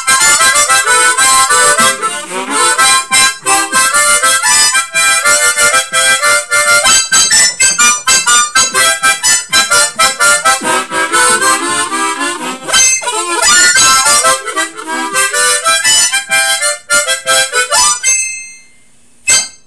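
Harmonica played solo: a fast, rhythmic gato (Argentine folk dance tune) in quick short notes and chords. The playing stops shortly before the end, followed by a single brief click.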